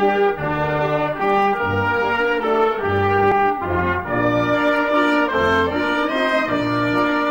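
Background music played on brass: held chords changing every half second to a second over a low bass line.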